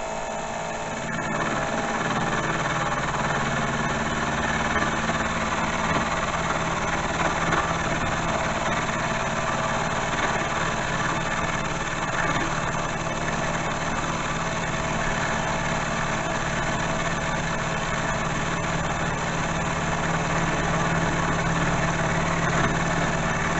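Milling machine running steadily with its cutter taking a cut along a metal workpiece, the table lock lightly applied to add drag; the machine's hum gets slightly louder about a second and a half in as the cut begins.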